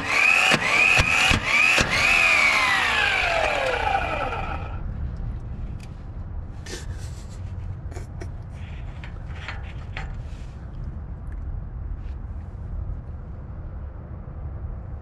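Mplus 12-volt roadside impact wrench hammering on a staked 32 mm axle nut, its motor whine dipping with each blow, about three blows a second, as the nut breaks loose. About two seconds in the trigger is let go and the whine falls in pitch, dying out near the middle; after that only a low rumble and a few light metal clicks as the loosened nut is turned off by hand.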